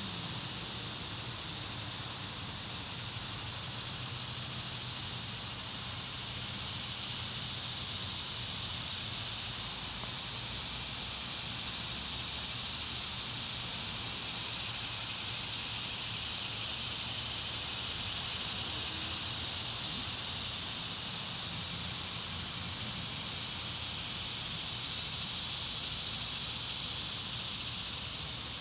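A steady, high-pitched outdoor hiss that holds even throughout, with no distinct events.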